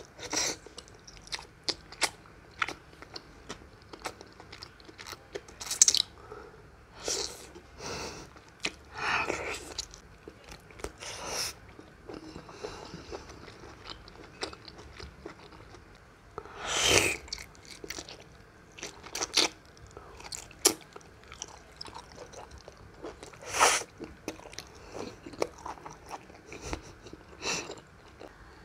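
Close-miked chewing of chewy spider conch meat: irregular wet mouth clicks and smacks, with a few longer, louder stretches.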